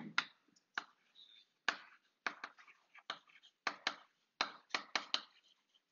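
Chalk tapping on a blackboard as letters are written: a string of short, sharp clicks, irregularly spaced, about two or three a second.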